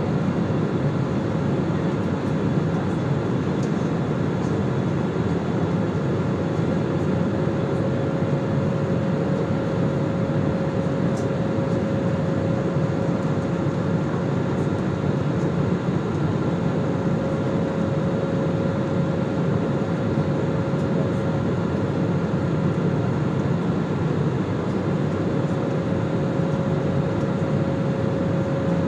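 Steady drone of an airliner cabin with the engines and air system running, with a steady mid-pitched whine that fades for a few seconds past the middle and then comes back.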